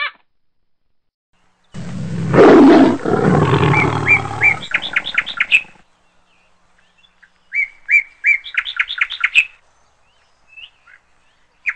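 Runs of short, high, bird-like chirping calls, several quick notes at a time, heard twice. They follow a loud, rough, low noise that lasts about three seconds near the start.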